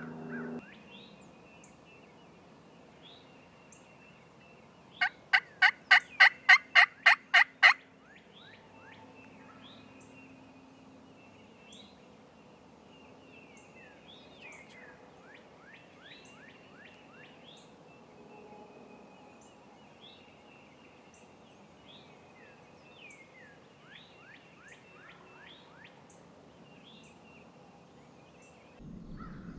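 A wild turkey gobbler gobbles once, loudly, about five seconds in: a rapid rattling run of about ten notes lasting about two and a half seconds. Fainter high bird chirps and short descending whistles come and go.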